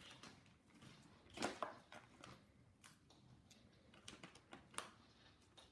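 Faint, scattered clicks and light rustling from a Flying Frenzy wand cat toy being assembled by hand, the loudest click about one and a half seconds in.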